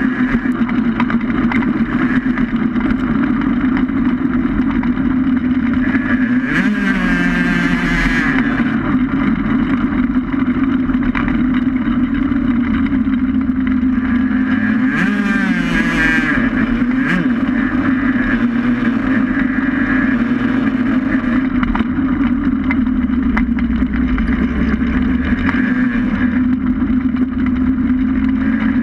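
Onboard sound of a racing vehicle's engine running steadily at speed, heard from a camera mounted on the machine. Its pitch swings up and down briefly about seven seconds in and again about fifteen seconds in.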